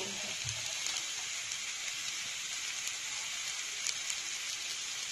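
Sliced carrot, green beans and onion sizzling in hot oil in a pan: a steady crackling hiss of frying. A few brief ticks about four seconds in come as shredded cabbage drops into the pan.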